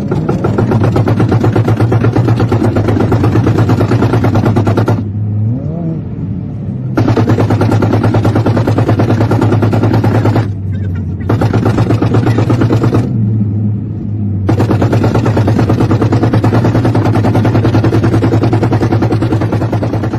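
Car engine running hard at high revs, heard from inside the cabin as a loud, rapid pulsing crackle. It drops away three times before coming back on.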